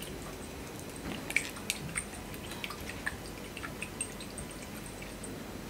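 Capped glass sample cell shaken by hand: faint liquid sloshing with scattered light clicks, as DPD free chlorine reagent powder is mixed into the water sample.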